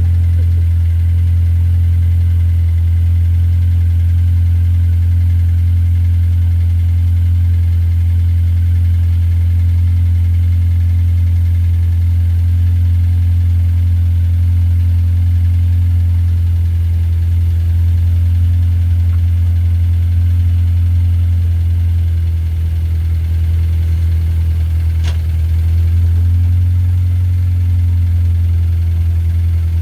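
Mini convertible's four-cylinder petrol engine idling steadily while the car stands still, its note shifting slightly about 22 seconds in.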